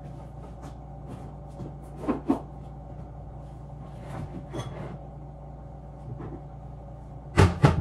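Knocks and clatters of things being handled in a kitchen: a few around the middle and a louder pair of knocks near the end, over a steady low hum.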